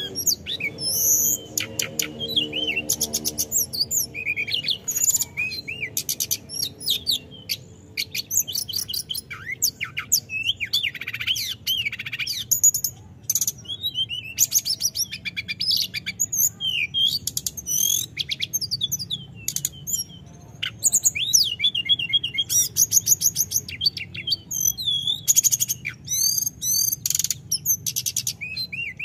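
Caged male hill blue flycatcher (tledekan gunung) singing continuously: a stream of fast, high whistled phrases and rolling trills, broken only by short pauses.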